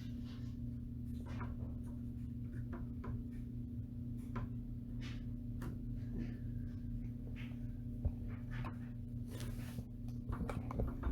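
Computer parts being handled and fitted by hand: scattered light clicks, taps and scrapes of plastic and metal, with a sharp click about eight seconds in, over a steady low hum.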